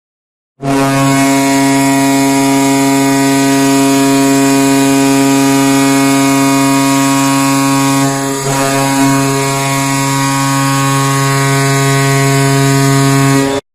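Goal horn blowing one long, low, steady note for about thirteen seconds, with a brief waver about two-thirds through, then cutting off suddenly.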